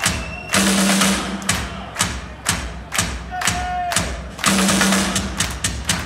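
Live drum solo on a Yamaha rock drum kit, heard through the venue's PA from the crowd: hard, evenly spaced hits about two a second. Washes of crashing cymbals come in about half a second in and again near the end.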